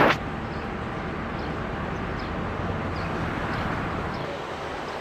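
Steady outdoor background rumble, with one sharp knock right at the start and faint high chirps now and then.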